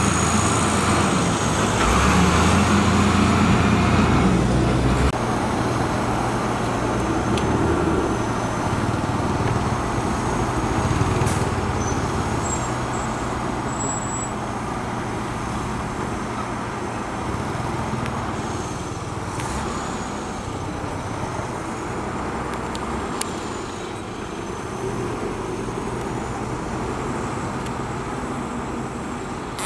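Heavy diesel construction machinery running steadily on a road-building site, its engine louder for the first five seconds or so and then settling lower.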